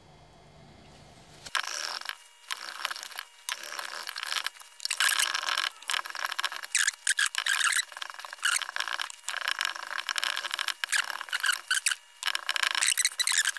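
Cloth rag rubbing wood dye into a wooden radio cabinet. A quick, uneven run of scrubbing strokes starts about a second and a half in and grows busier toward the end.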